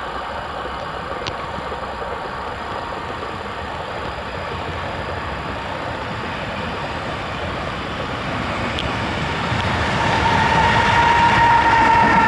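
A train approaching on the line: a steady rumble of wheels and running gear that grows louder from about eight seconds in, joined about ten seconds in by a steady whine.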